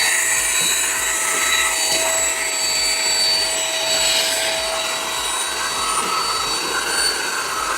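AGARO Regal 800 W corded handheld vacuum cleaner running steadily while sucking dust from a car floor mat. Its motor gives a steady whine over a rush of air, a fairly loud sound that is normal for an 800 W motor.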